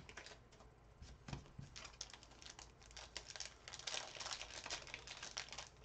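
Faint crinkling and light clicks of a trading-card box's packaging being handled and opened, busier in the second half.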